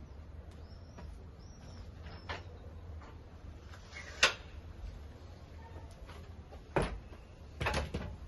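A few sharp knocks and clicks, the loudest about four seconds in and two more near the end, over a low steady outdoor rumble. Faint high bird chirps in the first two seconds.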